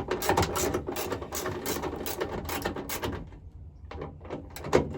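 Ratchet wrench clicking in quick strokes as the tail light's mounting bolts are loosened. It pauses briefly a little after three seconds in, then resumes near the end.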